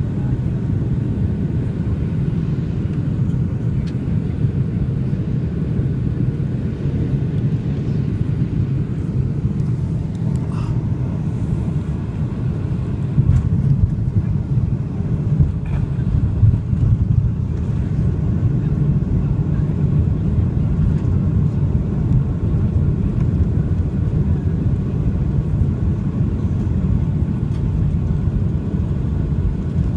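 Cabin noise inside a Boeing 757 just after landing: a steady low rumble of the engines and the landing gear rolling along the ground. There are a few brief louder jolts about halfway through.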